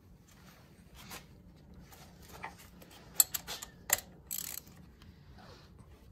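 A few sharp metallic clicks and a brief scrape as a spark plug socket and extension are handled and lifted out of the plug well, about three seconds in.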